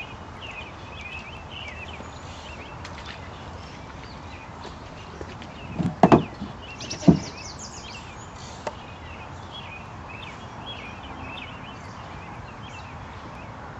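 Outdoor ambience: birds chirping over a steady hiss, with a few dull thumps about six and seven seconds in.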